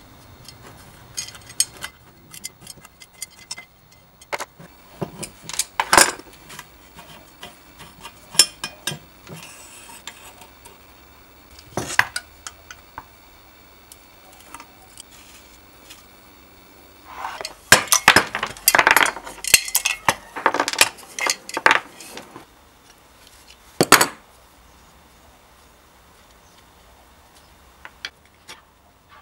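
Scattered metallic clinks, clicks and knocks of hand tools and steel fittings as an old blowtorch's burner assembly is taken apart with pliers and a wrench, with a busy run of clattering about two-thirds of the way through and one sharp knock shortly after.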